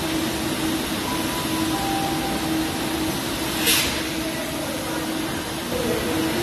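A CAF Civity Class 397 electric multiple unit standing at the platform, its on-board equipment giving a steady hum with a constant low tone. A short hiss comes about three and a half seconds in.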